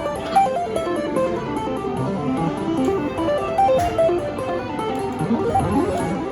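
Background music: an electric guitar picking a stepping melody over a steady, fast high ticking beat.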